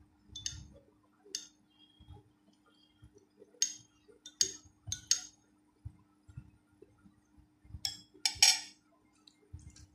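A steel spoon clinking against a ceramic saucer and plate during a meal, in a scattering of sharp clicks and clinks. The loudest clatter comes about eight seconds in. Soft eating sounds come in between, over a faint steady hum.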